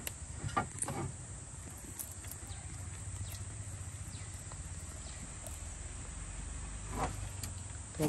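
Soft rustling and a few light knocks of a wet nylon gill net and a fish being handled against a wooden dugout canoe, mostly in the first second and again about seven seconds in, over a steady high insect drone and a low outdoor hum.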